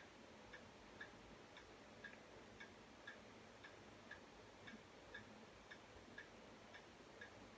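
Near silence with a faint, regular ticking, about two ticks a second.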